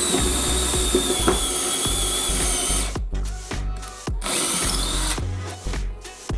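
Bosch 18 V cordless power tool's motor running in two bursts, the first about three seconds and the second about a second long, with a high whine. Background music with a steady bass plays underneath.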